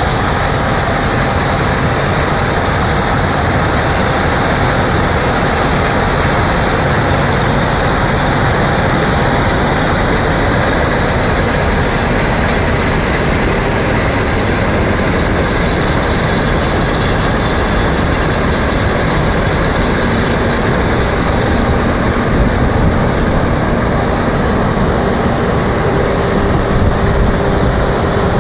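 D80 combine harvester running steadily while harvesting soybeans: a loud, continuous din of engine and machinery.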